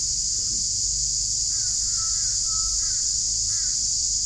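A steady, shrill insect chorus fills the background, and a bird calls several times in short arching notes, the calls coming in little groups through the middle.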